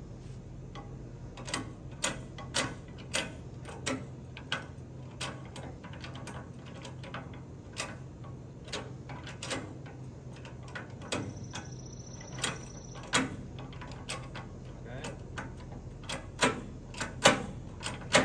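Irregular sharp clicks and knocks from a Green Touch combination lock being worked by hand, coming every half second to a second or so, with a few louder ones near the end.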